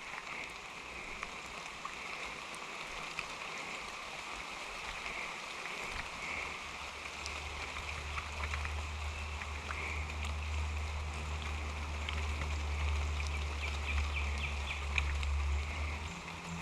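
Creek water running steadily. A low steady hum joins about six seconds in and stops shortly before the end.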